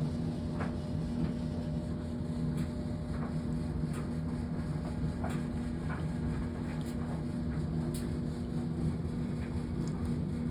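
A steady low mechanical hum with a couple of constant tones, with faint scattered clicks over it.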